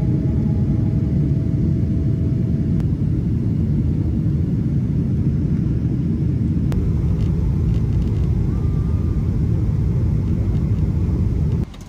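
Jet airliner cabin noise during the descent to landing: a loud, steady low rumble of engines and airflow. It cuts off suddenly near the end.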